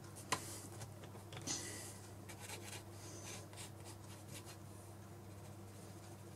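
Drawing pen scratching faintly on sketchbook paper as outlines are inked, in short strokes, with a light click shortly after the start.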